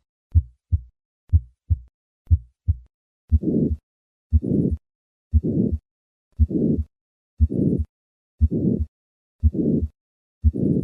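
Heart sounds at about one beat a second: three normal lub-dub beats, then from about three seconds in a harsh systolic murmur fills the interval after each first heart sound. This is the murmur of hypertrophic cardiomyopathy.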